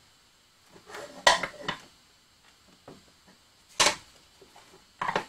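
Rummaging and handling of boxes and objects: scattered light knocks and rustles, with a sharp knock just under four seconds in and another about five seconds in.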